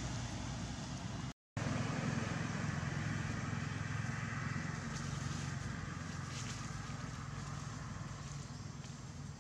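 Steady low engine rumble of a motor vehicle running, over an even hiss; the sound cuts out completely for a split second about a second and a half in.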